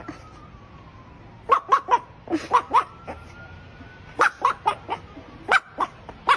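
A dog yipping and whining in quick groups of three or four short, high calls, with a faint drawn-out whine in between, begging for attention.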